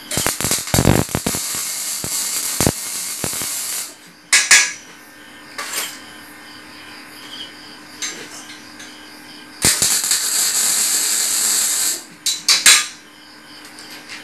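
Electric arc welding on a metal chair frame: two runs of steady crackling hiss, one about four seconds long at the start and one about two seconds long later, over a faint steady hum. Sharp knocks come between the two runs and just after the second.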